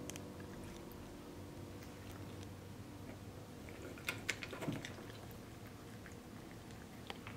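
A cat nosing among plastic Easter eggs on a tray, making a few faint clicks and light rustles, with a quick cluster about four seconds in.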